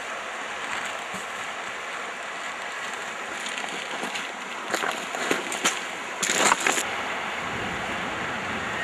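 Steady rush of river water, then a run of short splashes in the second half, loudest about two-thirds of the way through. They come from a hooked trout being played at the surface and brought to the landing net beside the raft.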